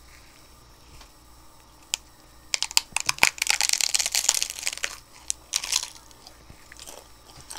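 Biting into and chewing double-layered hard taco shells: a dense run of crackling crunches starting about two and a half seconds in and lasting about two and a half seconds, then a shorter burst of crunching near six seconds.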